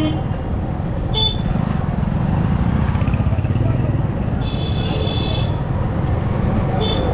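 Motorcycle riding through street traffic: a steady low engine and road rumble, with horns honking over it: a short toot about a second in, a longer honk of about a second in the middle, and another short toot at the end.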